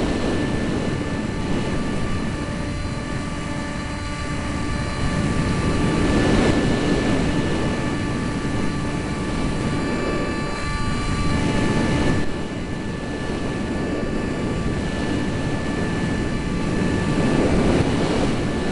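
Eurofighter Typhoon jet engines running with several steady whining tones, under a heavy rumble that swells and fades every few seconds, with wind on the microphone.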